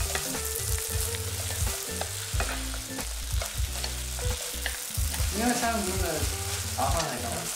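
Flat rice noodles, shrimp and bean sprouts sizzling in a hot wok as they are tossed and stirred with a spatula and chopsticks, with the utensils scraping and clicking against the pan.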